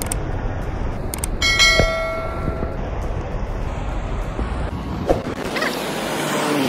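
Subscribe-button sound effect: two mouse clicks, then a bell 'ding' that rings for about a second and a half. Under it runs a steady outdoor noise, with a short knock near the end.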